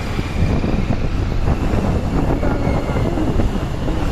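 Motorcycle on the move: a steady low rumble of wind buffeting the microphone, mixed with engine and road noise.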